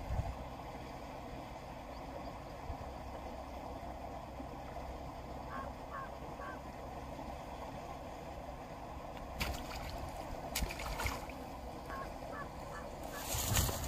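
A bird gives short repeated calls over steady outdoor background noise, three about six seconds in and a quicker run near the end. Near the end comes the loudest sound, a short splashing burst as a hooked rohu thrashes at the surface.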